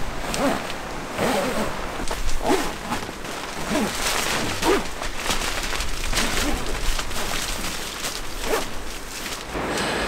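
Gusty wind rumbling on the microphone, with repeated rustling and flapping of tent fabric as the tent is pitched.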